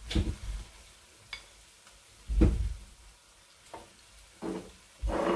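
A spoon scraping and knocking in a non-stick kadai as thick semolina halwa is dished out, in separate short strokes with low thuds, the loudest about two and a half seconds in.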